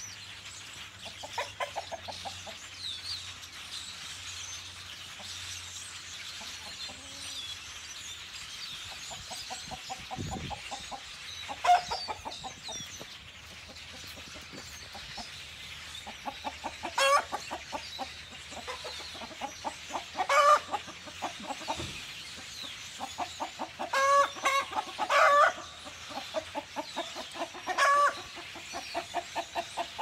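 Chickens clucking in rapid runs, with several louder, longer calls rising above the clucking through the second half.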